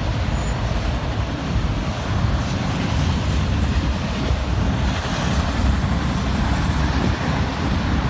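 Freight train of auto rack cars rolling past, a steady rumble of wheels on rail.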